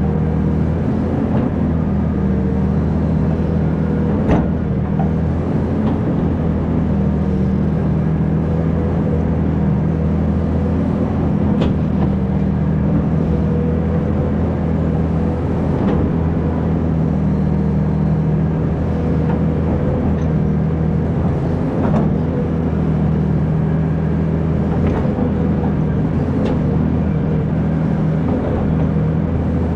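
Hydraulic excavator's diesel engine running steadily under load while digging, with a few sharp knocks.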